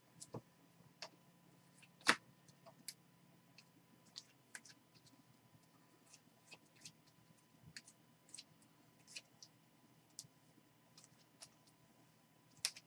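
Trading cards being sorted by hand: scattered light clicks and taps as cards are flicked through and set down on the table, the loudest about two seconds in and another near the end.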